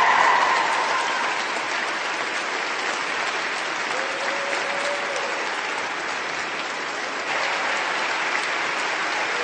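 Crowd applauding steadily, with a short held tone rising above the clapping about four seconds in and the applause growing slightly louder about seven seconds in.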